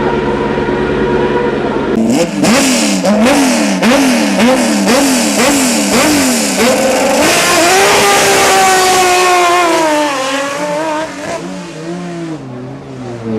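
Hillclimb race car engine, revving hard. Its pitch rises and drops sharply about twice a second for several seconds, then it settles into one long high note that slowly falls and fades.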